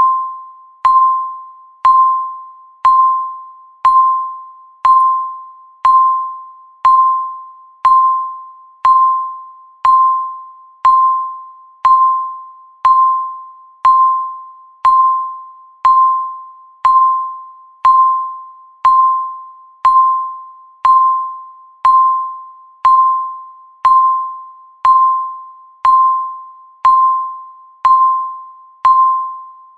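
Countdown timer's tick sound: a single clear tone struck once a second, each one fading away before the next, in an even, unbroken rhythm.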